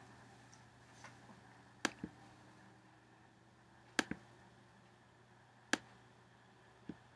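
Four sharp computer mouse clicks about two seconds apart, two of them followed a moment later by a softer second click, over a faint steady low hum.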